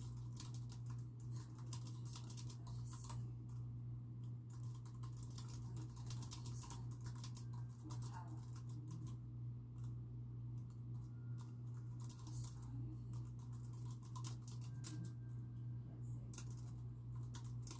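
Typing on a computer keyboard: quick runs of key clicks with short pauses, over a steady low hum.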